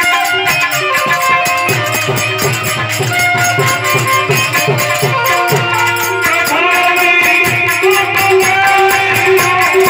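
Live devotional folk song led by a harmonium, with a fast, jingling rattle-like percussion beat and a low hand-drum pulse; a man's voice joins in singing about two-thirds of the way through.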